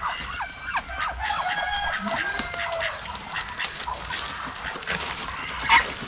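Chickens clucking and squawking in a run of short calls, with one louder squawk near the end, as a bird is caught by hand.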